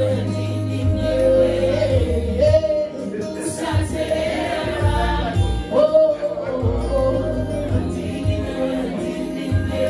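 Live song: a woman sings in Shona into a microphone, accompanied by a strummed acoustic guitar.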